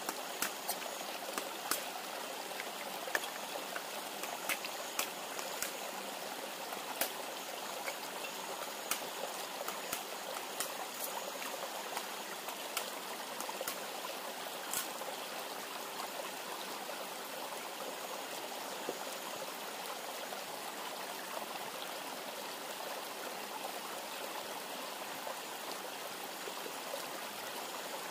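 Steady rushing of a river, with scattered sharp crackles and pops from a wood and bamboo campfire, most of them in the first half.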